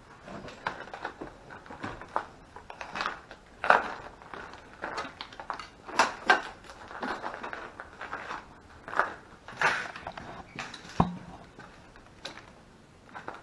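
Footsteps crunching and scraping over rubble and broken debris on a floor, with irregular clicks and clatters and one sharper knock late on.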